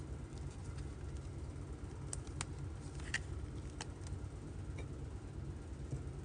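Faint steady low hum with a few soft clicks, about four, from trading cards being handled.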